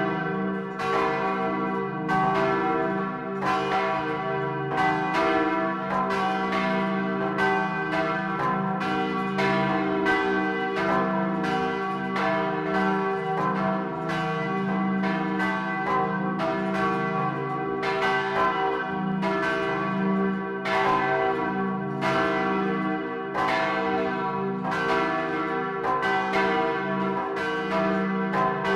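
Large swinging church bells ringing together in a full peal: the great bell cast in 1525 (4300 kg, tuned c′) with the two 1983 bells tuned e′ and g′. Clapper strokes fall about one and a half times a second, each with a clang over a long, lingering hum.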